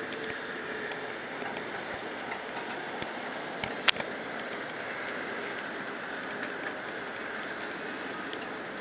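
Steady hum of distant road traffic, trucks including concrete mixer trucks passing along a road. One sharp click about four seconds in.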